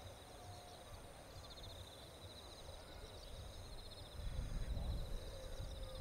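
Insects chirping in the grass: a fast, pulsing high trill with a steady thin whine above it, over a low rumble that grows louder about four seconds in.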